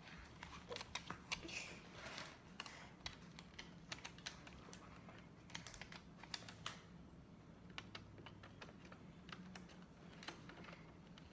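Faint paper handling at a table: scattered light clicks and ticks with a few short rustles, from sticker sheets being peeled and sticker-book pages being handled.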